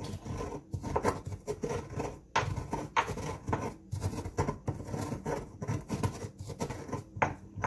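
Stone pestle grinding coarse salt and dried spices in a volcanic-stone molcajete: a steady run of gritty scraping and grinding strokes, about two a second.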